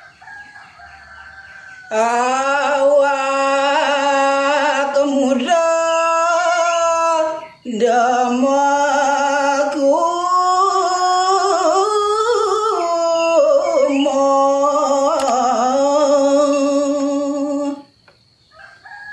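A man singing a verse of Balinese geguritan in the pupuh Ginanti metre, solo voice with long, ornamented notes that waver in pitch. It starts softly, swells in about two seconds in, pauses briefly in the middle, and stops shortly before the end.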